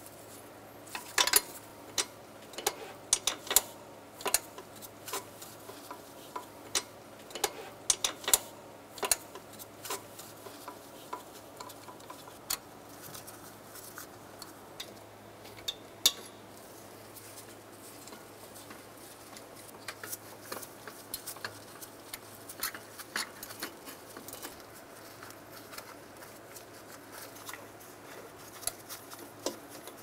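Small metal tool clicks and clinks, irregular and scattered, as the nuts and bolts of an intake manifold are run down by hand. The clicks come thickest in the first half and lighter toward the end.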